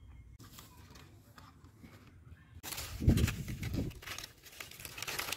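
Long green leaves rustling and crinkling as they are laid down and pressed by hand, starting after about two and a half seconds, with a soft thud just after.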